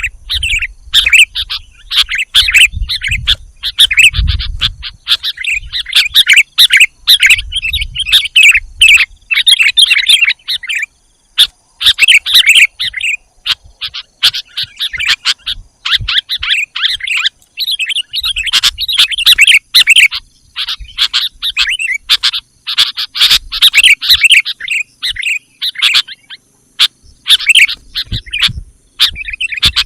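Sooty-headed bulbuls calling: loud, rapid chattering phrases in bursts, broken by short pauses.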